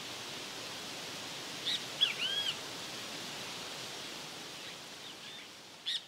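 Great kiskadee calling: a few short, arching notes about two seconds in, a fainter pair later on, and more starting right at the end, over a steady outdoor hiss.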